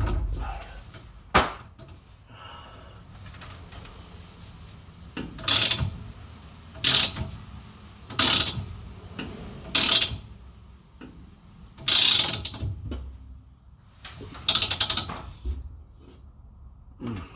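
Socket ratchet clicking in short strokes, about six of them roughly every second and a half, tightening a threaded fitting on an air-suspension tank.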